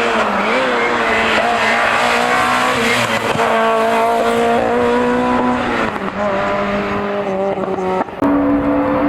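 Hillclimb race car engine running hard at high revs, its pitch held fairly steady with small shifts. The pitch drops about six seconds in, and after a brief cut about eight seconds in it steps up higher.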